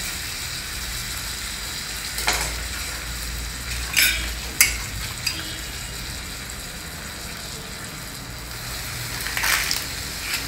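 Pav bread warming with butter on a hot tawa griddle: a steady sizzle, broken by a few short clicks and knocks as the bread pieces are handled on the pan.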